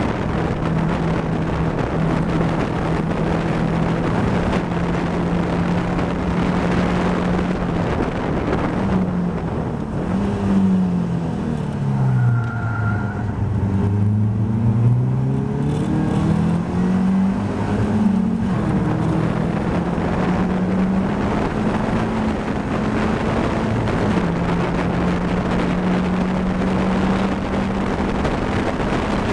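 In-cockpit sound of a Caterham Seven race car's four-cylinder engine running at high revs with wind rushing past the open cockpit. About nine seconds in, the revs step down as it brakes and downshifts for a slow hairpin, sitting low for a couple of seconds. It then accelerates hard with quick upshifts and settles back to steady high revs.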